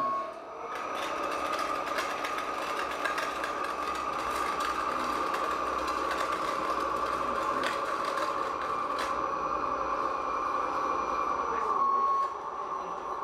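Small motors of radio-controlled model trucks and machines whining steadily, with scattered light clicks. A short beep sounds near the end.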